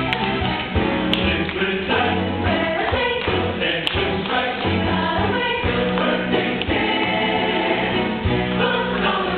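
A choir singing in parts over instrumental accompaniment, with a steady bass line underneath.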